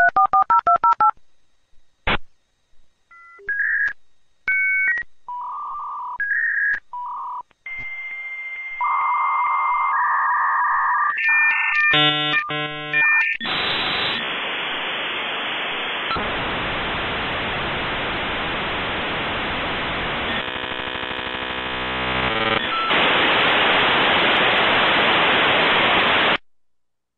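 Dial-up modem connecting: a quick run of touch-tone dialing and a click, then a string of beeps and tones, then the long hiss and screech of the modem handshake. The handshake noise cuts off abruptly near the end as the connection is made.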